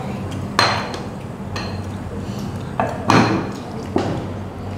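Dishes and a pot being set down and moved on a glass-topped dining table: about five sharp clinks and knocks of crockery, some with a short ring, the loudest about three seconds in. A low steady hum runs underneath.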